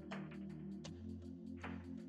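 Background music: sustained low bass notes and chords that change about every second and a half, with light drum hits over them.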